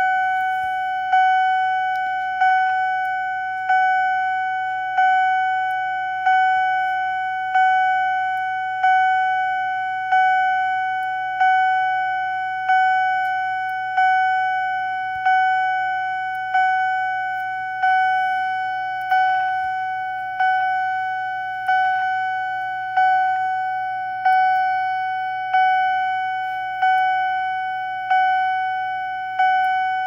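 Wheelock CH70 fire alarm chime strobe chiming: one electronic chime tone struck over and over, about once every second and a quarter, each strike fading a little before the next.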